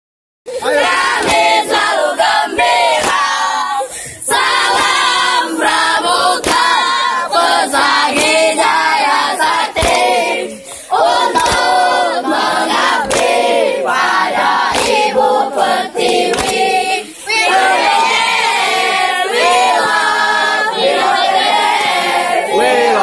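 A group of teenagers singing and chanting together loudly in unison, with some hand claps.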